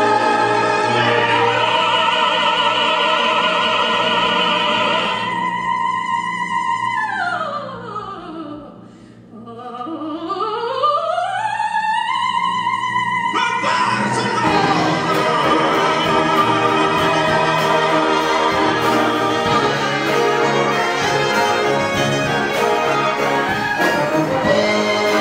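Operatic singing with a brass band and choir, on long held notes over sustained brass. About seven seconds in, a single held note slides down in pitch and fades, then slides back up. About halfway through, the full band comes back in with a steady beat.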